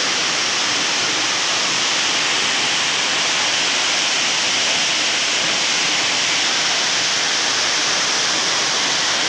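A tall waterfall's falling water makes a loud, steady rush that does not change, loud enough to drown out conversation.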